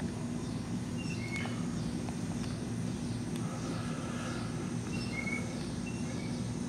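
Garden ambience: a steady low hum in the background, with a small bird's short two-note chirps, a higher note then a lower one, repeating every second or so through the second half.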